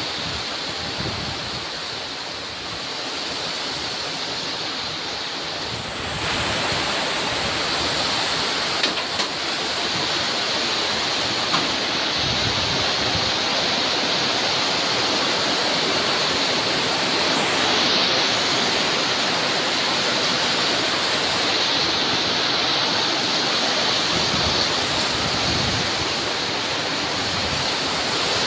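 Heavy rain pouring on a corrugated metal roof and the ground, a dense steady hiss that gets louder about six seconds in.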